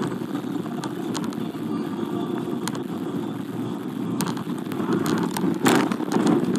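Car driving, heard from inside the cabin: steady low road and engine noise, with scattered light clicks and a brief louder noise about five and a half seconds in.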